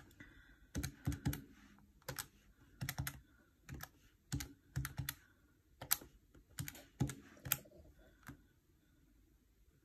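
Plastic keys of a desktop calculator being pressed one after another, a string of short clicks, some in quick pairs, that stops about a second and a half before the end.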